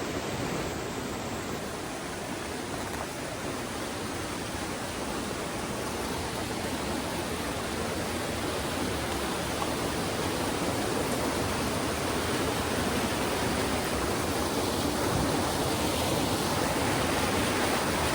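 Steady rush of falling and running water from a waterfall, growing slightly louder near the end.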